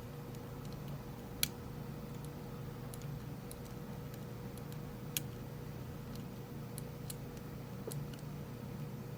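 Faint metallic ticks of a pick working the pins of a Rav Bariach LocXis pin-in-pin euro cylinder under tension, with two sharper clicks about a second and a half and five seconds in, over a steady low hum.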